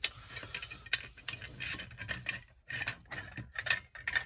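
Irregular clicks, knocks and short scrapes of 3D-printed plastic blaster parts and metal rods being handled and slid together during assembly.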